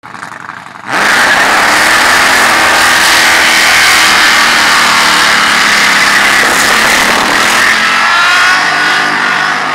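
Supercharged Holden VL Commodore doing a burnout, its engine held at high revs while the rear tyres spin and screech on the bitumen. The sound jumps suddenly to full loudness about a second in and stays loud.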